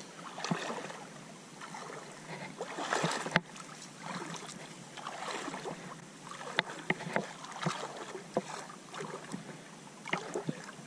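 Shallow water sloshing and splashing as someone wades through it, with a few sharp clicks and knocks.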